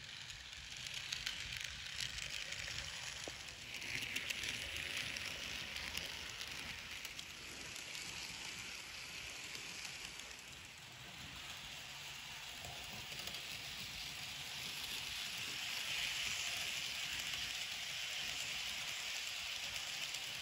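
Model train running on the track: a steady hissing rattle of small wheels on rail, swelling about four seconds in and again near the end as the coaches pass close.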